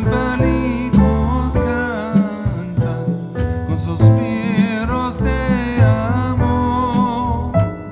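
Background music: guitar with a wavering melody line over it.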